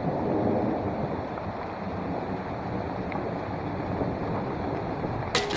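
Steady rain falling in woodland, a dense even wash of noise. Just before the end a quick run of sharp clicks starts.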